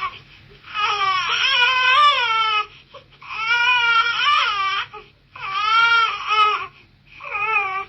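Infant crying: a run of high-pitched wails, each lasting one to two seconds and wavering in pitch, broken by short pauses for breath.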